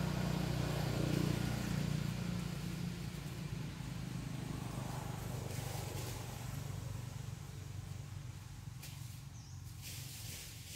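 Low steady rumble that slowly fades toward the end, with a few faint brief rustles in the second half.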